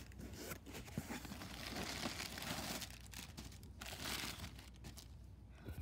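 Cardboard box flaps being pushed open and plastic air-pillow packing crinkling as a hand rummages inside: a run of irregular rustles and scrapes, quieter near the end.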